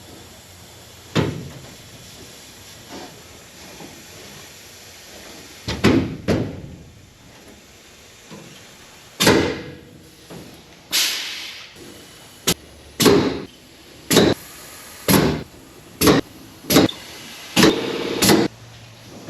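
Pop rivets being set in race car sheet metal with a rivet gun: a series of sharp snaps, a few spaced out at first, then coming about once a second in the second half.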